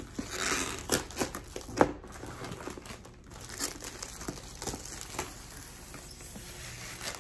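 Cellophane shrink-wrap being peeled off a cardboard kit box, crinkling and tearing in irregular sharp crackles, loudest in the first two seconds and softer after.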